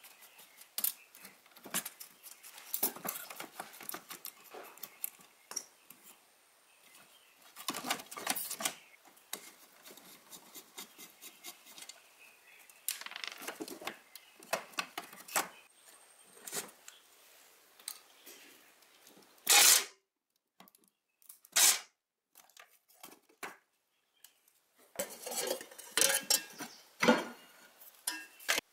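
Metal parts being handled: irregular clinks, knocks and short scrapes, with two louder short rasps about twenty and twenty-two seconds in.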